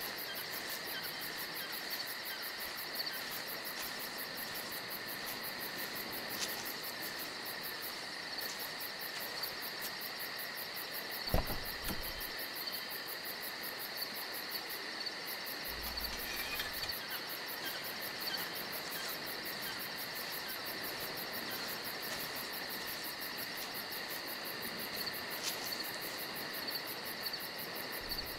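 Crickets chirping in a steady continuous chorus, with one dull thump about eleven seconds in.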